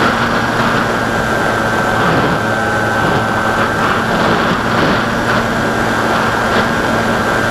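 Electric motor and pusher propeller of an AXN Floater Jet RC plane running at steady throttle in flight: a steady whine over air rushing past the onboard camera's microphone.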